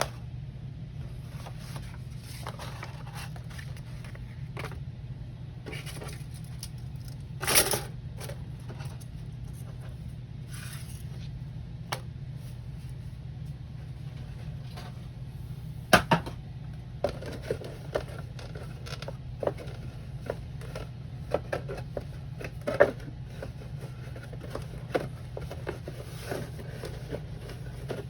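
Handling noise from a model kit's paper manual and plastic packaging: scattered rustles, scrapes and light clicks, with a sharper knock about halfway through, over a steady low hum.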